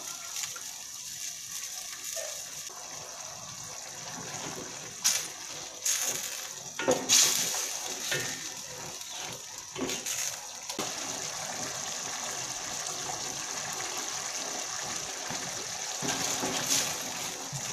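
Pork slices simmering in sauce in a stainless steel pot with a steady bubbling hiss as cornstarch is stirred in. A wooden spatula scrapes and knocks against the pot several times, loudest between about five and eleven seconds in.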